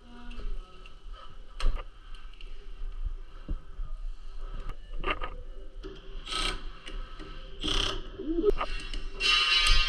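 Scraping and rubbing from hands-on work, coming in several short bursts, with a longer, louder scrape near the end.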